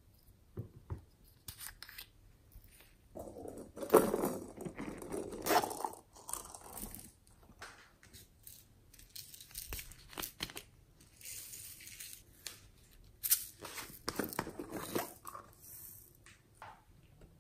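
Small plastic containers of slime decorations being handled, opened and tipped out, giving irregular clicks, crinkling and rattling as beads are shaken onto the slime. Two louder flurries, about four seconds in and again about thirteen seconds in.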